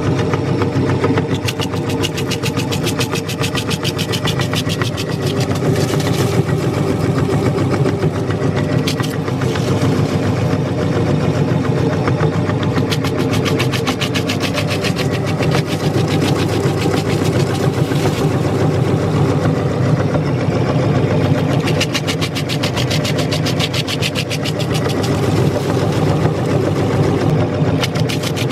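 Electric meat grinder running steadily, its motor humming under a fast, dense crackle as it grinds through a large crunchy cookie.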